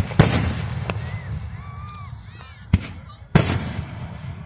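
Aerial fireworks shells bursting: a sharp bang just after the start, a smaller crack about a second in, then two more bangs close together about three seconds in, each followed by a fading rumble of echo.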